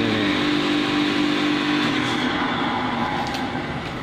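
Hydrant pump set running in the pump room: a steady mechanical drone with a hum, the hum cutting out and the level dropping slightly about halfway through.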